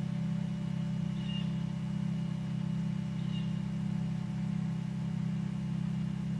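Steady low background hum, unchanging throughout, with two faint short high chirps about two seconds apart.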